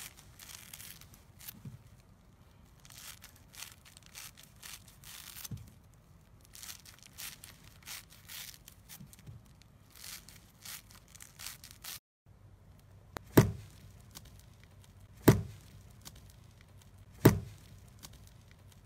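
Scissors cutting through a foam sponge: a long run of short, rough, crunchy snips and tearing sounds. After a brief break, three loud thumps about two seconds apart as a ball of slime is handled and pressed by hand.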